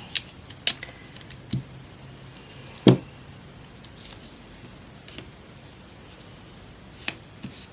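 Paper being handled and cut with scissors: a scattered series of short snips and crinkles, with one louder sharp tap about three seconds in.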